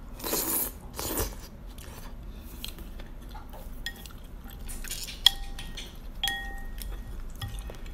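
Noodles slurped into the mouth in two quick noisy draws, then, from about three seconds in, chopsticks and a spoon knocking and scraping in the noodle bowl: a string of light clinks that each ring briefly.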